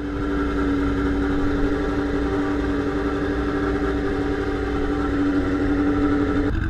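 Motorcycle engine running at a steady idle, heard from a helmet-mounted camera, with an even hum over a low rumble. The steady hum drops out abruptly just before the end.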